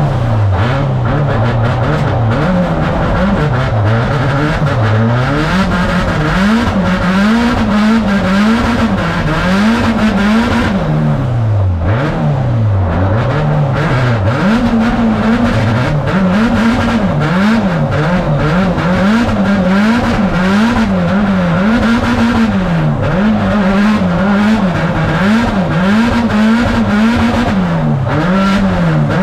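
Nissan 180SX drift car's engine, heard inside the cabin, revving hard and falling back over and over as the car is thrown through a drift run. The pitch rises and drops every second or so, with one deeper drop about twelve seconds in.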